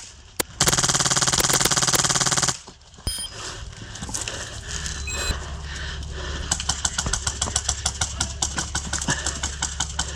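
Polarstar HPA-powered Stoner 96 airsoft LMG firing full-auto as suppressing fire: a short blip, then a burst of about two seconds at a very high rate that sounds like a fast buzzing rattle. Later, a quieter run of rapid clicking shots follows.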